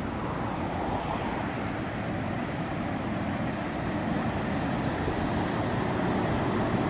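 A pair of coupled electric locomotives approaching and passing close by: a steady rumble of wheels on rails and machinery, growing slowly louder.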